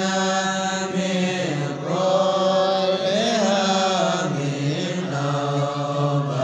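Group of voices chanting sholawat, an Islamic devotional chant, together in unison. They hold long melodic notes that slide up and down in pitch without a break.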